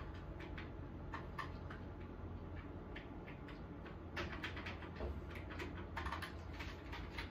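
Metal spoons and kitchen utensils being handled: scattered light clicks and clinks, busiest about four seconds in and again around six seconds, over a low steady hum.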